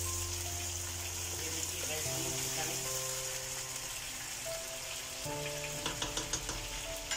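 Chicken pieces sizzling steadily in hot oil in a non-stick wok, with a few light clicks of a silicone spatula against the pan near the end. Soft background music with held notes plays underneath.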